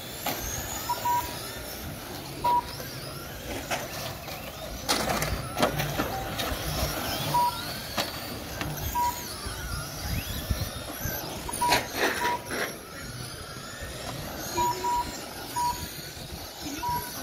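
Several RC cars racing on asphalt, their motors whining and sweeping up and down in pitch. A few sharp knocks of cars crashing come about five and twelve seconds in. Short, loud electronic beeps at one pitch sound irregularly every second or few seconds.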